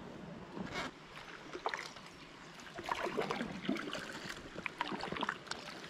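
Kayak paddle strokes in canal water: small irregular splashes and drips, a little louder from about three seconds in.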